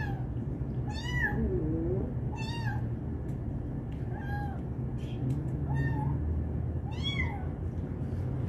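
Newborn kitten mewing: about six short, high cries, one every second and a half or so, over a steady low hum.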